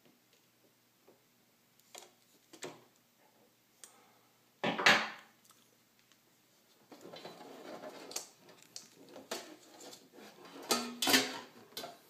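Clatter and scraping of a computer power supply's circuit board being worked loose and lifted out of its metal housing: scattered light clicks, a loud clunk about five seconds in, rustling handling noise through the second half and another loud clunk near the end.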